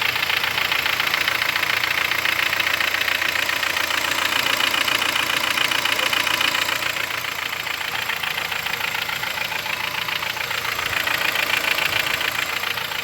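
Hyundai Sonata NF 2.4's four-cylinder petrol engine idling with a rapid, even, diesel-like knocking clatter. The owner doesn't know the cause of the fault.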